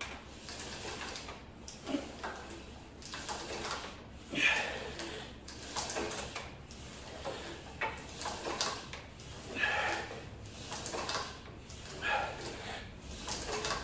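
A set of weighted ab crunches on a plate-loaded exercise machine: the machine slides and knocks with each rep, together with hard exhalations, about one rep every second and a half.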